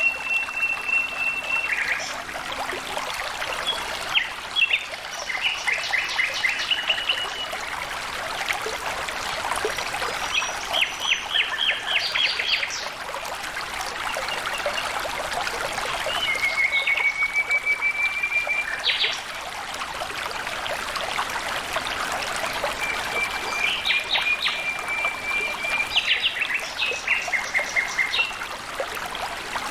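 Water trickling and flowing steadily, with a bird calling over it again and again: a held high whistle at the start, then bursts of quick repeated notes and level trills every few seconds.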